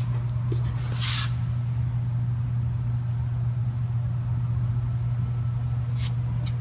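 Steady low hum of an RMT C-Smart swing-beam hydraulic shear's motor and pump running idle, with a brief hiss about a second in and a couple of faint clicks near the end.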